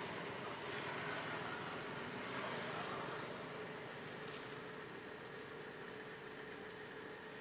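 Steady outdoor background hiss with a faint low hum, and a short crackle of dry leaves about four seconds in as a monkey paws through the leaf litter.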